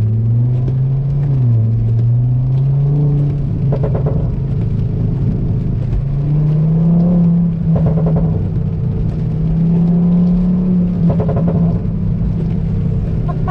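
Turbocharged inline-five of a 2004 Volvo S60R, straight-piped after the downpipe and running a crackles-and-pops tune, revving up and dropping back as it is driven. It crackles and pops on the exhaust in short bursts about three times when the throttle is lifted.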